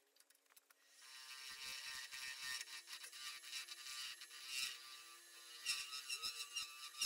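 A turning gouge cutting a resin-cast burl blank spinning on a wood lathe: a steady, high scraping whine that starts about a second in.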